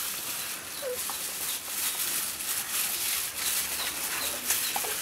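Rustling, crinkling noise of a thin plastic bag worn as a glove while minced pork is pressed into bitter gourd pieces, with a chicken clucking faintly about a second in.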